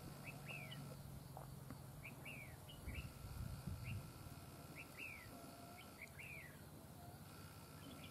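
Red-whiskered bulbul calling: short sharp notes in pairs, each a quick rising note followed by a falling one, repeated about six times. A few low thumps come about three to four seconds in.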